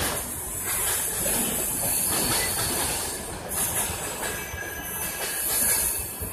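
Indian Railways red-and-grey LHB passenger coaches rolling past along a platform: a steady rumble and rush of wheels on rails, with a faint thin squeal from the wheels.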